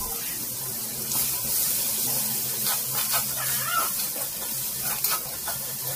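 Sliced onions and curry leaves sizzling in hot oil in an aluminium kadai, with a steel spoon stirring and scraping the pan from about a second in.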